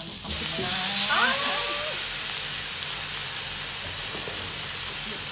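Marinated pork neck and sliced pork belly sizzling on a hot electric grill pan. The hiss starts suddenly about a third of a second in as the meat goes down, then holds steady.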